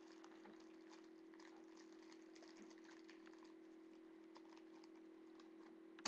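Near silence: faint room tone with a steady low hum and scattered faint crackles.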